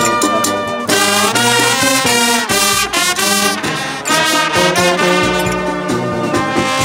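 Live brass band playing: trombones, trumpets and a sousaphone sounding together in a tune, with drum strokes in the first part.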